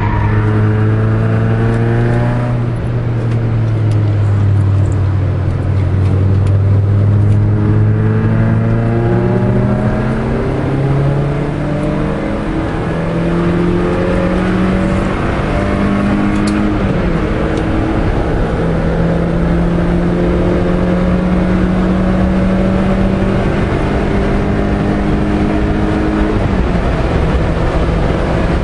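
Peugeot 306 S16's 2.0-litre 16-valve four-cylinder engine under track driving, heard from inside the cabin over road and wind noise. The engine note holds fairly steady for about ten seconds, then climbs in steps and holds at a higher pitch, dropping suddenly near the end.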